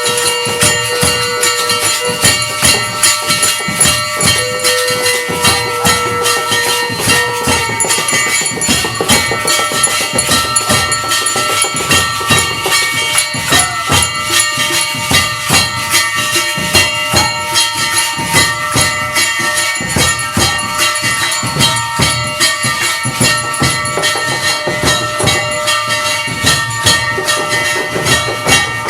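Aarti ritual music: temple bells and metal percussion ringing continuously, with drum and cymbal strokes beating steadily at about one strong beat a second. A held tone sounds twice in the first eight seconds.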